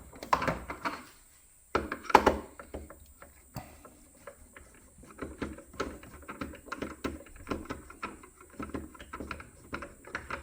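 Screwdriver working a screw loose from an espresso machine's housing: a run of small clicks, with a louder knock about two seconds in.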